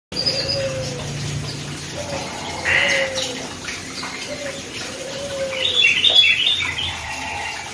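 Bird calls: a series of short, low whistled notes, each sliding downward, repeated about five times. Bursts of higher chirping come about three seconds in and again near six seconds, the second burst the loudest.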